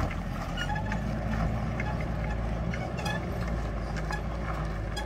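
Toyota Hilux expedition camper's engine running steadily as the truck climbs a steep, rocky dirt track, with scattered small clicks and crackles over it.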